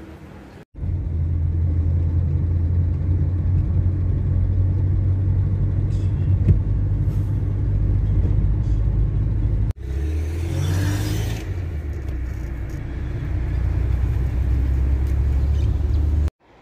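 Steady low rumble of a car driving, heard from inside the moving car. It is broken by two abrupt cuts where clips are joined, and it swells briefly about ten seconds in.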